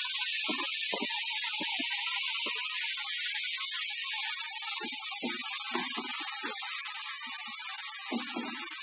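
Marinated chicken and onion-tomato masala sizzling in butter in a kadai, with a steady hiss and short scattered knocks of a wooden spatula stirring against the pan.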